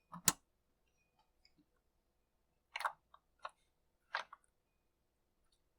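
A few sharp clicks and light knocks of small parts being handled on a chainsaw's intake, as the choke linkage is unhooked from the carburetor. The loudest click comes just after the start, and four softer ones follow about three to four seconds in.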